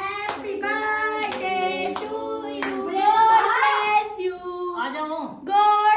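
Voices singing a song with long held notes, with hand claps keeping time through the first few seconds.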